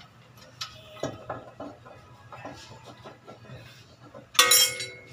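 Light metallic clicks and knocks of hand tools and suspension parts being handled, then, a little past four seconds in, one loud, ringing metal clang that dies away within about half a second.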